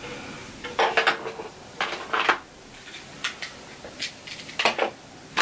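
Makeup containers and tools clinking and rattling on a tabletop as products are picked through and handled: a handful of short clatters spread through a few seconds.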